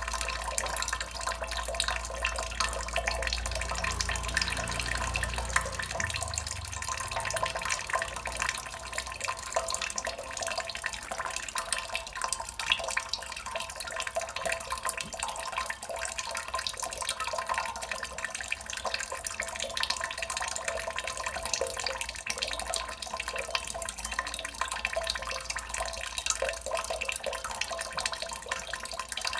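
Water drops falling and splashing in quick, dense succession, a steady continuous water sound. A low rumble underneath fades out about six seconds in.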